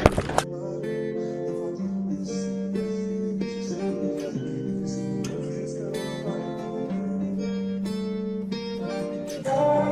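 Background music: an acoustic guitar plucking a slow run of chords. A short burst of noise at the very start cuts off about half a second in, when the music begins.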